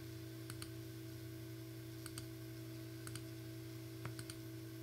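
Faint computer mouse clicks, a few scattered single and double clicks, over a steady low hum.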